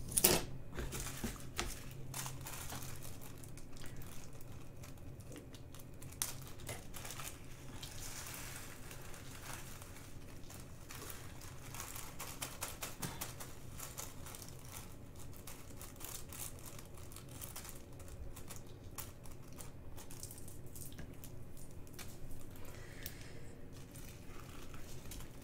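Small plastic bags of diamond-painting drills being handled and crinkled, with scattered light plastic clicks and taps, and a sharper click right at the start.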